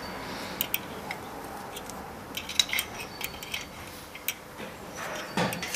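Light metallic clinks and ticks at irregular intervals, with a couple of faint brief ringing notes: a ring spanner working the screw of a Jubilee clip on a brass oil pickup extension tube.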